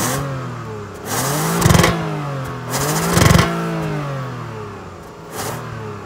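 2020 Toyota Avalon Limited's stock exhaust, heard close at the tailpipe as the parked car is free-revved. Two quick revs each climb sharply and fall back toward idle, followed by a smaller blip near the end.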